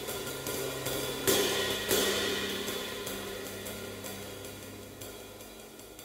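Jazz drum kit playing quick hi-hat and cymbal strokes over a held low note, with two cymbal crashes a little over a second in that ring out and slowly fade.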